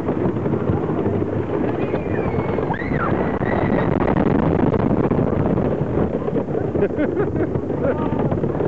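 Wooden roller coaster train running fast down its track, a loud steady rumble and rattle with wind buffeting the microphone. Riders yell about two seconds in.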